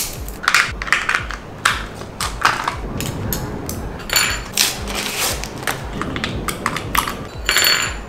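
Irregular clicks and taps of hard plastic parts being handled, with a small screwdriver working at the underside of a plastic remote-control toy rat. Two brief high-pitched tones come about four seconds in and near the end.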